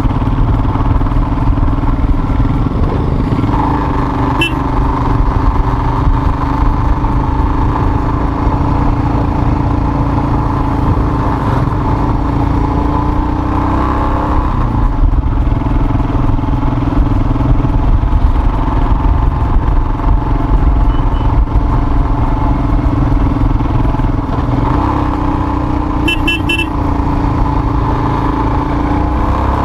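Motorcycle engine running steadily under the rider as it climbs a narrow uphill road, its pitch rising and easing with the throttle. Heavy wind rumble sits underneath, and a few brief high chirps come near the end.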